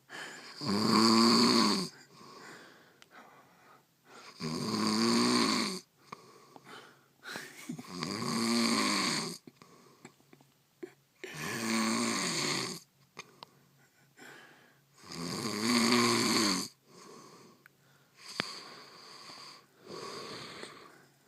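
A person snoring in deep sleep: five loud snores, each about a second and a half long, roughly every three and a half seconds, with softer breaths between them and only the softer breathing near the end.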